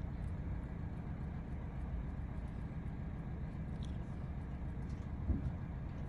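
Narrowboat diesel engine running steadily with a low, even thrum. A single short bump sounds about five seconds in.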